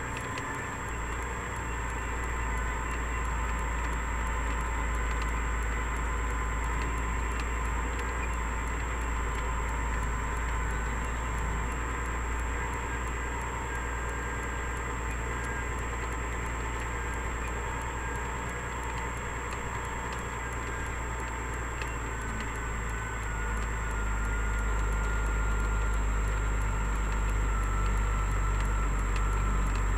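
Kenworth road train's diesel engine running as the truck drives along a dirt track: a steady low drone with light rattles, getting louder about three-quarters of the way through.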